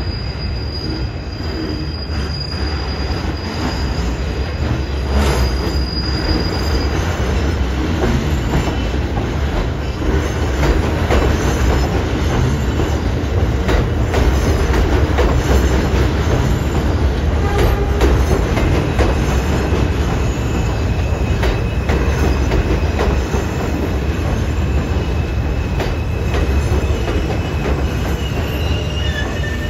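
R160 subway train running past on curved track: a steady heavy rumble of wheels on rail, with thin steady wheel squeal from the curve, one high squeal in the first few seconds and a lower one from about two-thirds of the way through. Scattered sharp clicks of wheels over rail joints run through it.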